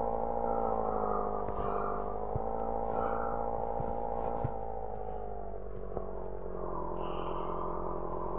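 A motor vehicle running with a steady droning hum that drifts slowly in pitch, with a few light clicks.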